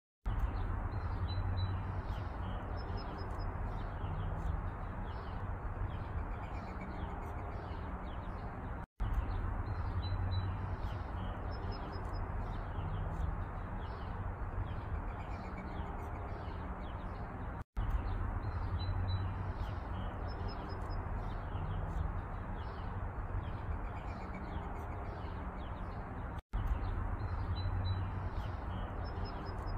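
Small birds chirping over a steady background rumble. The same few seconds of sound repeat about every nine seconds, each repeat set off by a brief silent gap.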